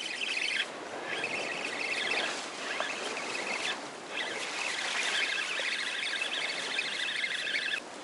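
Spinning reel being cranked to bring in a hooked fish: a fast, fine whirr of gear ticks in four stretches with short pauses between. Surf washes steadily underneath.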